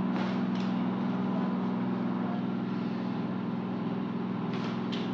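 Steady low machine hum, with a few faint light clicks near the end.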